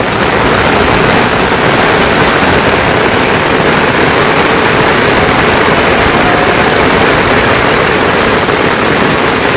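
Heavy rain falling steadily, mixed with strong wind that rumbles irregularly at the low end.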